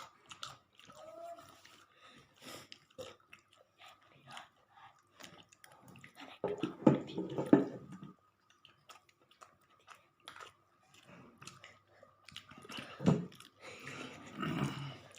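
A person chewing and biting food close to the microphone: wet chewing with small clicks and crunches, louder for a while about seven seconds in and again near the end.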